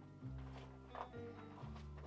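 Background music with a low bass line stepping to a new note about every half second, with a couple of soft knocks.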